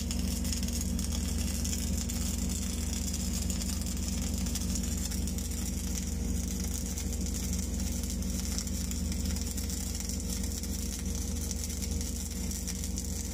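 Mechanized pipe-welding carriage laying a girth weld on a steel pipe: a steady sizzling crackle from the wire-fed arc over a constant low machine hum from the welding equipment.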